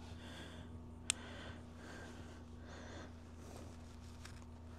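Quiet background with a steady low hum, broken by a single sharp click about a second in.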